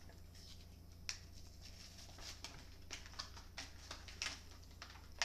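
Hands opening the packaging of a 2x2 Rubik's cube: scattered small clicks and crinkling rustles.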